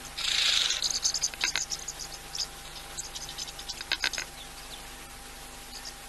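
A short rush of hiss, then a run of quick, high-pitched chirps and clicks from a small animal that stops about four seconds in.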